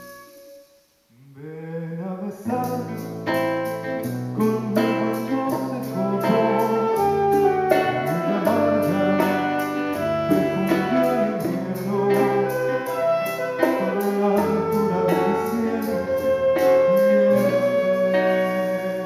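Live folk ensemble of acoustic guitars, charangos, harp, saxophone, flute and percussion playing a Chilean folk piece with a steady strummed beat and a bass line. It begins about a second in with a quick rising run and fades out near the end.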